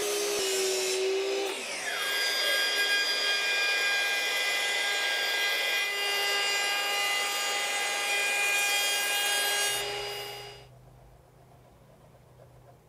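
A miter saw's motor whine winds down in a falling pitch about a second and a half in. Then a Ryobi 18V cordless trim router, mounted upside down, runs with a steady high whine as a thin wooden strip is fed across its bit, until it stops about ten and a half seconds in.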